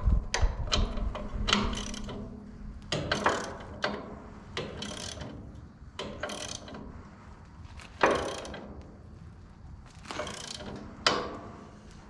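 Ratchet wrench with a 15/16 socket clicking in short, repeated strokes as a bolt is tightened, the nut on the other side held with a crescent wrench. A heavier knock of metal on metal comes right at the start.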